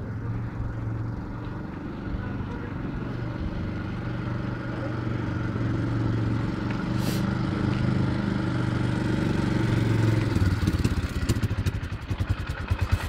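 Four-wheeler (ATV) engine running and getting louder as it comes close. Near the end it settles into a fast, even putter right beside the microphone.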